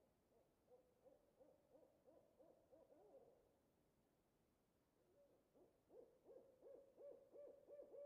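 Owl hooting faintly in two runs of quick, evenly repeated hoots, about three a second. The first run fills the opening three seconds and the second starts about five seconds in, a little louder.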